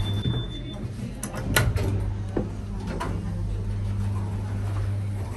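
Vintage single-speed OTIS lift coming to a stop: the running noise fades, sharp relay and brake clicks sound about a second and a half in, then the power-operated car and landing doors slide open over a steady low hum.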